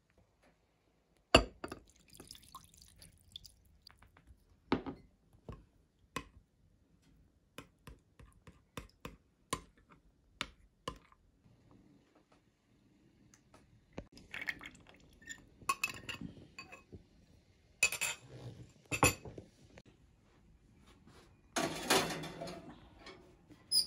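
Metal spoon clinking and scraping against a glass baking dish and a small glass bowl as stuffing and tomato sauce are spooned into pepper halves: sharp single clinks with pauses between. In the second half the clatter grows denser and louder, with a longer scraping clatter near the end.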